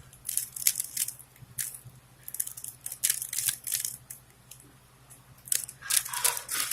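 A 3x3x3 Rubik's Cube's plastic layers being turned by hand, clicking and clacking in quick irregular flurries with short pauses between.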